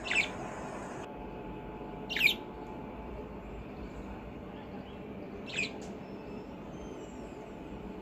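Pet budgerigars calling: three short chirps a few seconds apart, each a quick falling note, over a steady low background noise.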